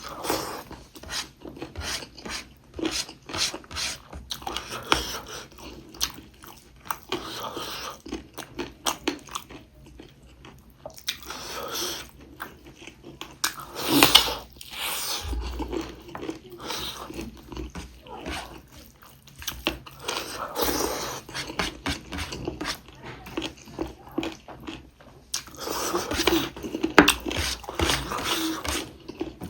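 Close-up eating sounds of a person chewing and biting into pork ribs with rice: irregular wet mouth clicks and chewing, with one louder sharp snap about halfway through.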